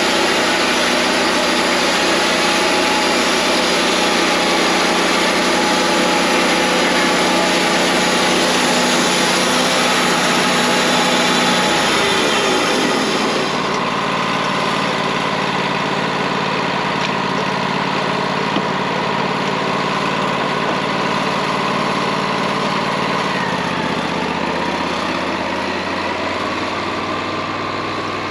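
Wood-Mizer LT40 portable bandsaw mill running. For the first twelve or so seconds it gives a harsh, noisy sound. About halfway it settles into a slightly quieter, steadier whine, and the pitch shifts down and then up a few seconds before the end.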